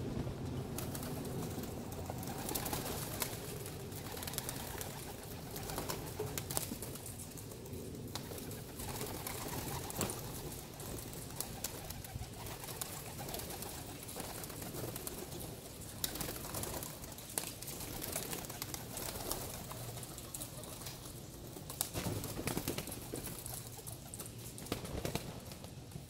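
Young racing pigeons cooing steadily, with scattered sharp clicks and knocks throughout.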